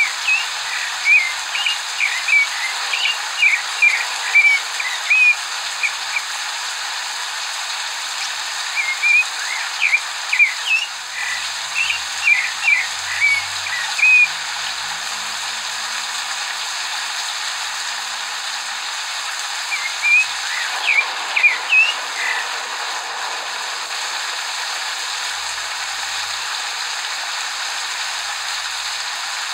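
Rufous-bellied thrush (zorzal) singing quick runs of short whistled notes in three bouts, silent for the last several seconds. Under it runs a steady hiss of recorded rain played from a rain-sounds app, which sets the bird singing.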